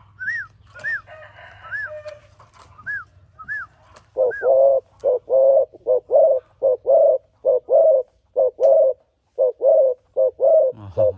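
Spotted dove cooing: a rapid run of short, low coos, about two a second, starting about four seconds in. Before it come a few short, high, rising-and-falling whistled notes about half a second apart.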